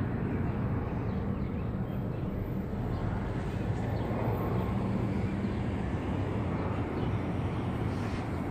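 Steady low outdoor rumble with a faint low drone, like distant vehicle noise.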